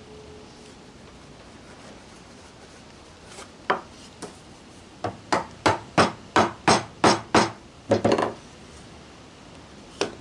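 Rubber mallet tapping a wooden dovetail joint together, seating the pins into the tails. One knock, then a run of about ten sharp taps roughly three a second, and a last tap near the end.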